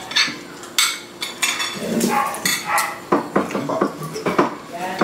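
Metal spoon and fork clinking and scraping on ceramic plates during a meal, with two sharp clinks in the first second. After that come short, indistinct voice-like sounds.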